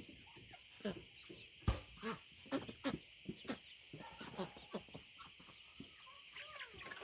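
A flock of young hens clucking, with many short calls overlapping throughout and a single sharp knock a little under two seconds in, over a steady high hiss.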